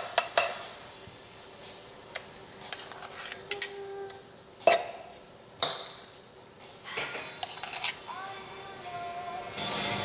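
Metal spoon clinking and scraping against a metal muffin tin and a mixing bowl while thick batter is scooped into the cups. There are several sharp clinks at irregular intervals, the loudest about halfway through.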